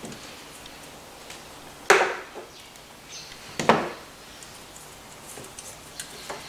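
Hand tool knocking and clicking against metal while the 7 mm nuts on the glow plug terminals of a Ford 1.8 TDCi diesel engine are undone: two sharp knocks about a second and a half apart, the first the louder, with light clicks between.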